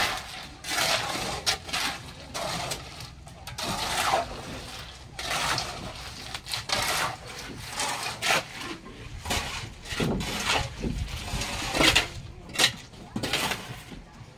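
Shovel scraping through cement mix in repeated strokes, roughly one a second.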